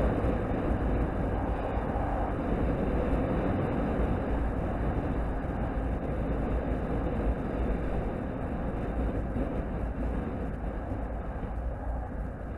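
Wind rush on the camera's microphone at road speed on a sport bike, mixed with engine and tyre noise. It is a steady, dense noise that eases slightly over the last few seconds.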